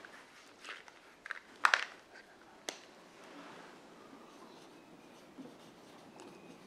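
A few short clicks and taps as a marker is handled and uncapped, the sharpest about a second and a half in, then a whiteboard marker writing on the board, a faint soft rubbing from about halfway through.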